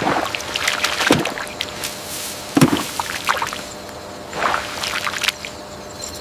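Water splashing and sloshing in irregular surges, a few strokes a couple of seconds apart.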